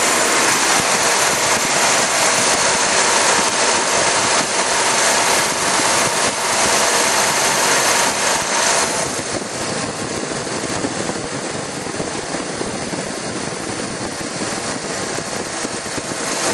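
Oldsmobile 307 V8 running after a cold start, heard up close under the hood as a steady rushing of engine, fan and intake noise. The hiss lessens about nine seconds in.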